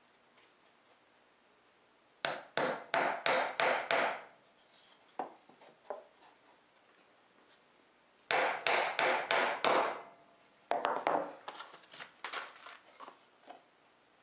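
Claw hammer driving nails into wood. Two runs of about six quick, evenly spaced blows, each lasting about two seconds, are separated by a few light taps. Near the end comes a third, lighter and more uneven run of taps.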